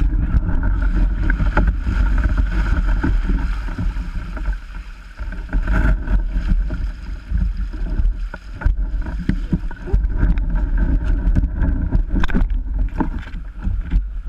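Heavy low rumble of wind and handling noise on a camera mounted to a kayak, with a steady hiss and scattered sharp knocks as the boat and gear are moved about on river gravel.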